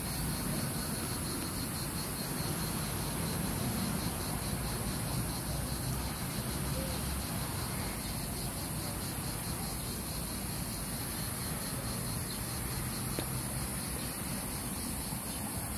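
Steady high-pitched insect chirring with a fast, even pulse, over a low rumble of wind or distant traffic.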